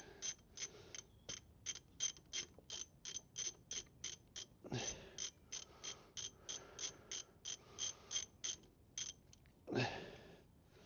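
Hand ratchet wrench clicking steadily, about three to four clicks a second, as a bolt on a Land Rover Defender 90's front hub is wound out. A louder knock comes about halfway, and another near the end just after the clicking stops.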